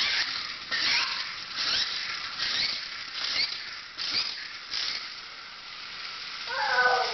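Toy cars whirring and rattling across a hardwood floor, with a small motor's pitch rising and falling several times. A child's voice starts near the end.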